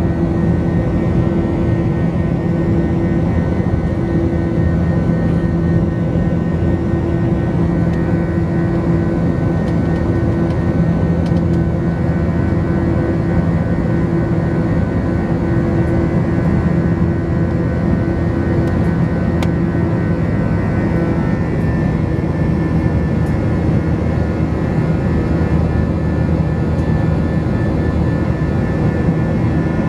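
Airbus A321 jet engines and airflow heard from inside the cabin during the climb after takeoff: a loud, steady rush with a low drone and a higher whine. The higher whine shifts slightly in pitch about two-thirds of the way through.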